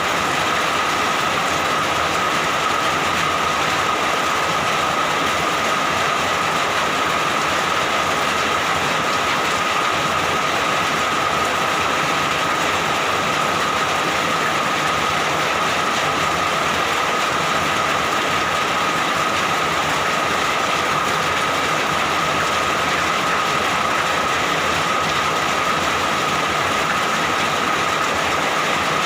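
Steady rain falling, an even hiss with no breaks, with a constant faint high tone running through it.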